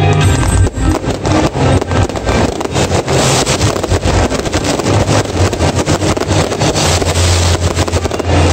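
Fireworks bursting and crackling in rapid, overlapping bangs, with a steady low rumble underneath, loud enough to overload a phone's microphone.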